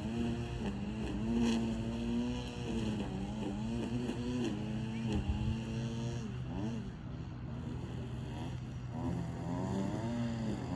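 A motor running with a steady low hum, its pitch sliding up and down as the revs change.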